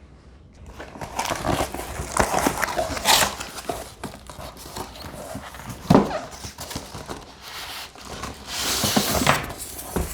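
Cardboard box being opened and its packaging handled: irregular rustling and scraping of cardboard, with a sharp knock about six seconds in and a louder burst of rustling near the end.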